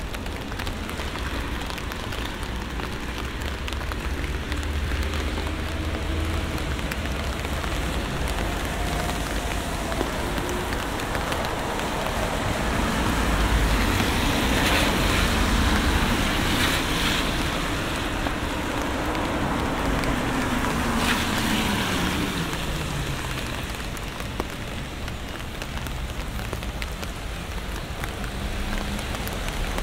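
Steady rain falling. About halfway through, a car passes, its engine note rising in loudness and then dropping in pitch as it goes by.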